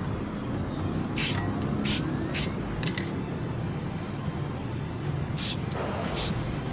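Aerosol spray-paint can sprayed in short hissing bursts: four close together about a second in, then two more near the end.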